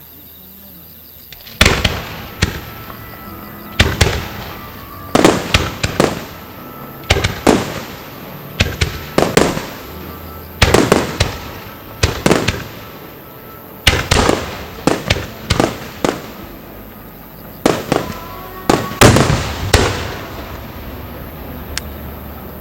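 Japanese starmine fireworks barrage: aerial shells bursting in quick succession, a run of loud booms often in clusters of two or three, each followed by a rolling echo. The bursts start about a second and a half in.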